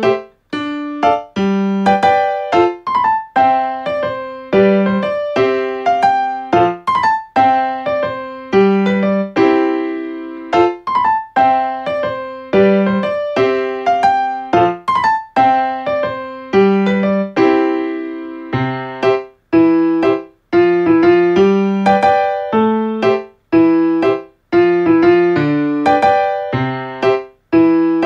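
Background piano music: a gentle melody of single struck notes, each fading away, with a light accompaniment.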